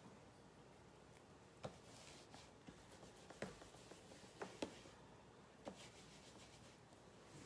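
Near silence with about five faint, light taps and rubs: hands handling card stock and stamping tools.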